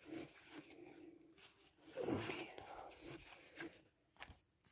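Faint rustling and sliding of cardboard baseball cards being flipped through by hand, with soft clicks as cards are moved. About two seconds in there is a brief low murmur of a voice.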